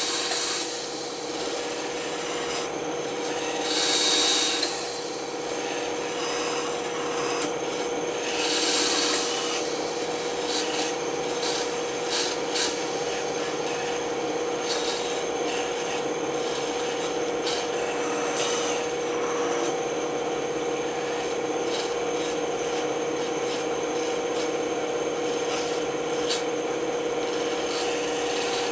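Band saw running with a steady hum while its blade cuts wood: three loud rushes of cutting in the first nine seconds or so, then lighter scraping and ticking as the piece is fed and turned.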